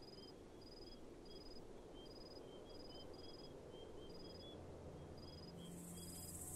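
Faint dusk ambience of crickets chirping, short high chirps repeating about once or twice a second over a low rumble. Near the end, music begins to swell in.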